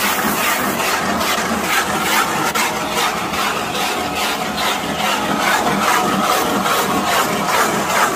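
Wood lathe's cutter hollowing out a log under automatic feed: a continuous scraping cut into the wood with a regular pulsing as the log turns.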